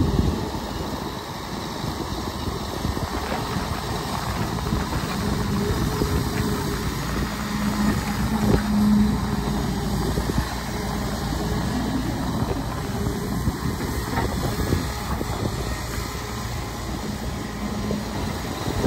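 Heavy diesel engine of a tracked excavator running steadily while it works, swelling briefly about halfway through, with a few faint knocks.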